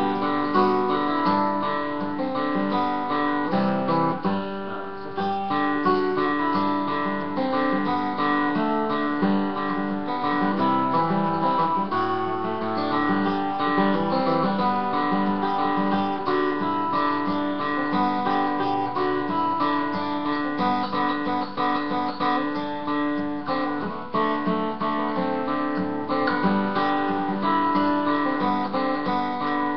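Steel-string acoustic guitar, fingerpicked, playing a Christmas carol arrangement: melody notes over a steadily repeating bass note.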